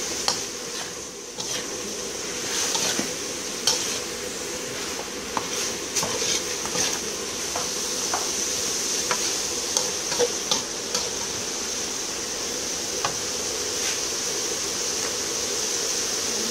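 A metal slotted turner scraping and clinking against a metal wok as green beans and sliced pork are stir-fried, over a steady sizzle. The clinks come thick and fast at first and grow sparse after about eleven seconds, leaving mostly the sizzle.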